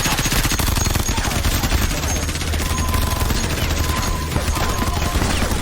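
Sustained rapid gunfire: many shots in quick succession, too close together to count, keeping up without a break.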